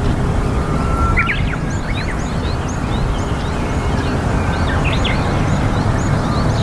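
Small birds chirping, with many short, high calls and a couple of brief clusters, over a steady low rumble.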